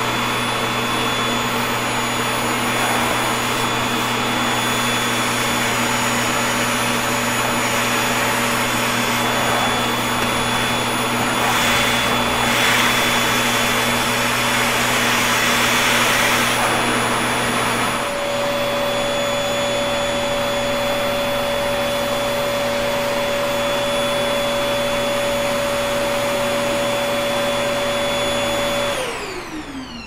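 Toshiba VC-PB9 canister vacuum cleaner running steadily as its nozzle sucks up cut hair from a hard floor. The airflow hiss grows louder for a few seconds in the middle, and the motor's tone shifts slightly a little past halfway. Near the end the vacuum is switched off and its whine falls away as the motor spins down.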